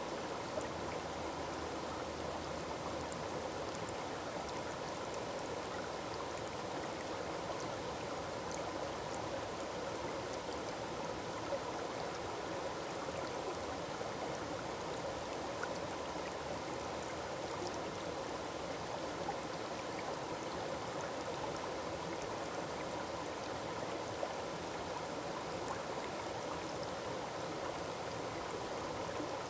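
A small forest waterfall, water falling and splashing in a steady, even rush with now and then a brief small splash.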